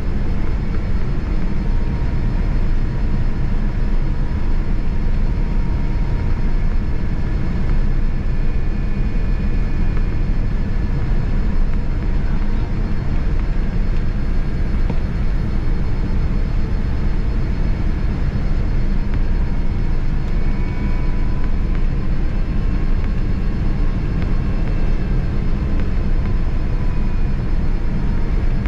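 Steady cabin noise of a Boeing 787-9 airliner in flight: a constant low rumble of engines and airflow, with faint wavering tones above it.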